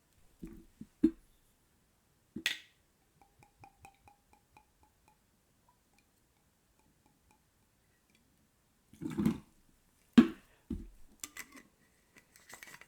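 Blue curaçao being poured from its glass bottle into a measure: a few clinks and knocks of glass, a short run of soft glugging and dripping from the bottle, then a dull thump and a string of sharp clinks as the bottle and measure are set down and handled.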